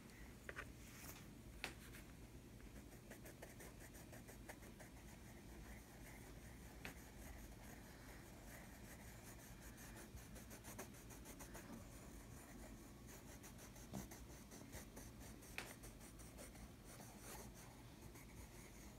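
Colored pencil scratching on paper in short, repeated shading strokes, faint, with a few light taps.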